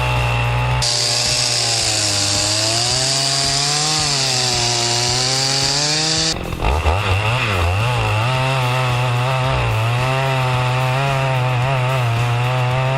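Chainsaw cutting through wood, the engine's pitch wavering up and down as it works under load. A strong hiss of the chain in the cut runs from about a second in until about six seconds in; then the saw dips briefly, revs and runs on.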